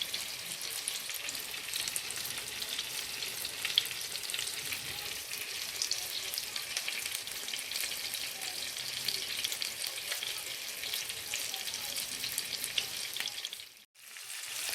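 Minced-beef kobideh kebabs sizzling and crackling steadily as they fry in mustard oil in a frying pan. The sound cuts out for a moment near the end.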